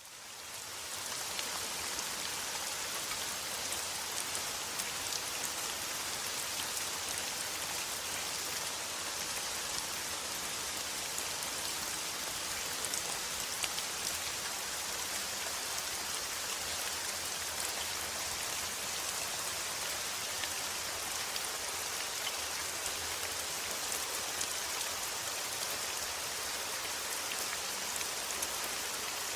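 Heavy rain falling steadily, a dense even hiss with scattered drop ticks, fading in over the first second.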